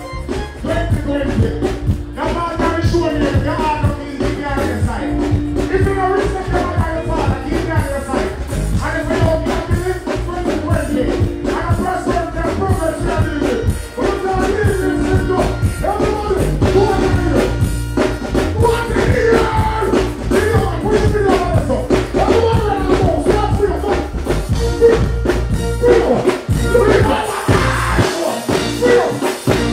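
Live reggae/dancehall performance heard through a concert PA: a deejay's voice chanting and singing over a bass-heavy backing riddim. Near the end the bass briefly drops out.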